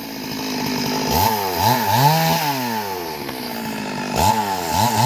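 Chainsaw engine revved in repeated short bursts, its pitch climbing and dropping back toward idle between them.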